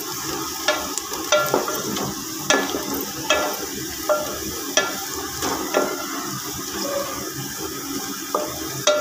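Sliced onions sizzling in hot oil in a metal pot as they near browning, stirred with a wooden spoon that scrapes and knocks against the pot about once a second.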